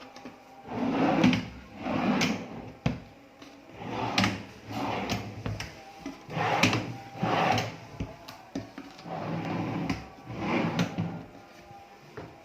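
Kitchen cabinet drawers sliding open and shut on their runners, about eight times in a row, with a few sharp knocks as they close.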